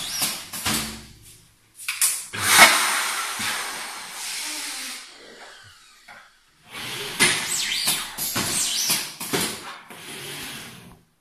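A burst of air hiss from the balloon-printing machine's compressed-air line, fading over about three seconds. Then a few seconds of clattering and clacks as a balloon is set in the clamp and the machine's aluminium frame holder is brought down.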